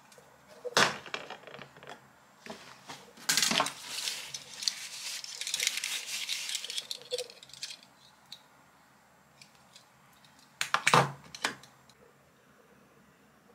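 Small hard objects clinking and knocking as they are handled and set down on a glass-and-metal vanity tray, with the loudest clatter about eleven seconds in. In the middle, a few seconds of tissue rubbing as a car key fob is wiped clean.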